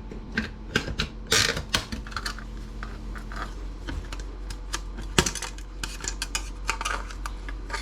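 Irregular clicks, scrapes and snaps of a plastic-welded metal piece being pried off a laptop docking station's plastic housing, with a sharper crack about five seconds in as a heat-staked joint gives.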